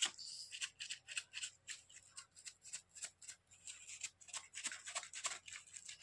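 A wooden door-latch rod is worked up and down inside a rolled paper tube, packing firework composition tight. It gives quick, irregular scratchy rustles of paper and plastic, several a second.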